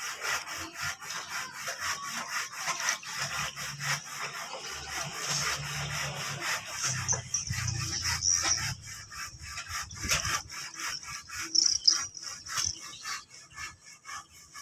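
A kitten chewing and crunching its food in fast rasping bites, about five a second, thinning out toward the end. A low steady rumble runs under the chewing for several seconds in the middle.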